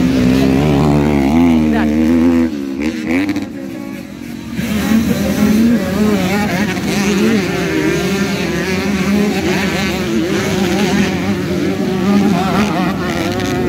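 Motocross dirt bike engines revving hard as the bikes race through the corners, their pitch rising and falling again and again with throttle and gear changes. The sound drops briefly about three seconds in, then comes back louder about a second later.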